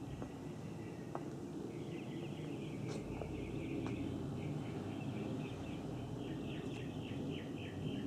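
Northern mockingbird singing a run of short repeated notes that turn into a quick series of downward-slurred notes, about four a second, near the end, over a low steady rumble.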